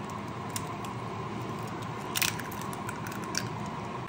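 Steady background noise with a few light clicks and clinks of small hard objects being handled, the loudest a short cluster about two seconds in.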